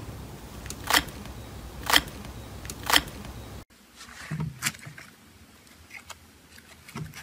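Thick slime pressed and pulled with a perforated metal masher: three loud squishes about a second apart. After a sudden cut, foam-bead slime (floam) squeezed in the hand, with soft scattered crackles.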